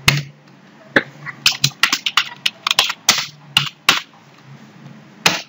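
Computer keyboard keys being typed, about a dozen quick, sharp clicks between about one and four seconds in, over a faint low hum.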